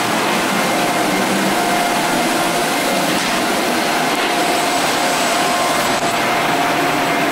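Electric floor-screening machine running steadily as it is worked over a hardwood floor, abrading the old finish. The sound is a constant drone with a steady hum through it.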